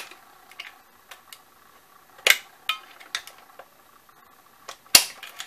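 A metal screwdriver clicking and clinking against the stitch-length regulator and buttonhole mechanism inside an opened Singer sewing machine, while the part does not seat. There are a few sharp metallic knocks, the loudest about two seconds in and just before the end.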